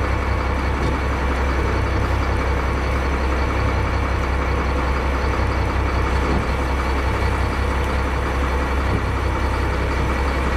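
Crab workboat's engine idling steadily, a deep continuous hum.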